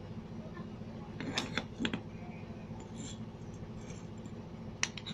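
Small metal clinks and knocks as the centrifugal clutch shoes of a Honda Vario 125 scooter are handled and pulled off the clutch plate's pivot pins. A cluster of clicks comes about a second in and a single sharper click near the end, over a steady low hum.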